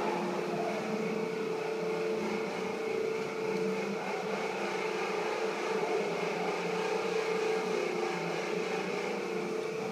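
Steady mechanical hum of a running motor or fan, a constant drone with a haze of air noise that does not change.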